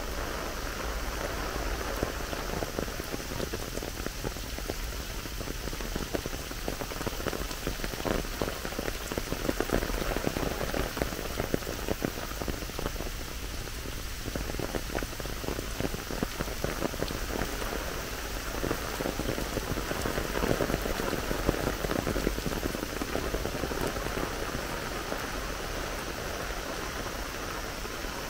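Steady rain falling, with many separate drops ticking close by.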